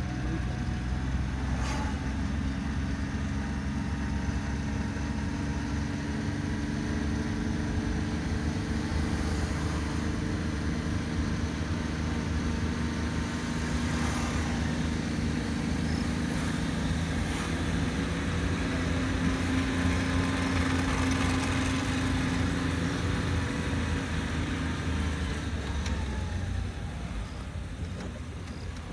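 Vehicle engine running at a steady drone with tyre and road noise, heard from aboard the moving vehicle.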